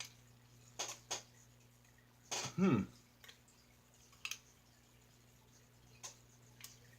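Light clicks and taps of small things being handled on a workbench, over a steady low hum. There is a brief falling vocal sound about two and a half seconds in.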